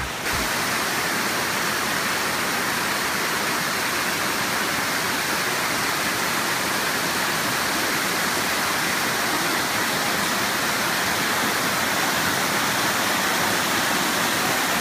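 Water cascading over rocks in a woodland mountain stream and waterfall: a steady, even rush.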